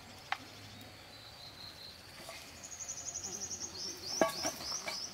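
Insects singing high and thin: a steady buzzing tone, joined about two and a half seconds in by a fast high chirping trill of roughly ten chirps a second. A sharp knock about four seconds in is the loudest sound, with a small click near the start.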